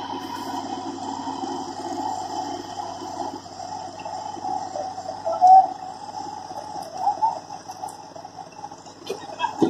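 Hyundai 70 crawler excavator's diesel engine and hydraulics running steadily as it walks itself down off a truck bed, with short high squeaks now and then, the loudest about five and a half seconds in.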